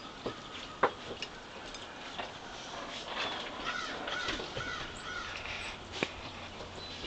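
Backyard feeder birds calling, with a run of repeated harsh calls from about three to five seconds in, typical of a crow or jay. A few sharp clicks break in, the loudest about a second in and another near the end.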